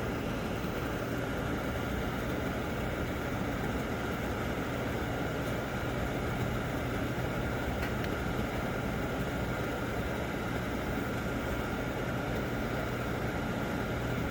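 Steady whir of Christie Roadster projector cooling fans running, with a constant low hum and a faint steady high tone.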